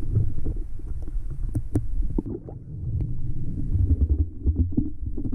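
Muffled low rumble of a camera held underwater, with scattered clicks and pops from bubbles and water movement, two of them sharp about a second and a half in.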